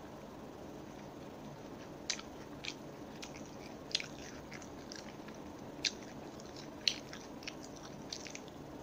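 Crispy breaded chicken nugget being bitten and chewed close to the microphone: a series of sharp, irregular crunches starting about two seconds in, over a steady faint hiss.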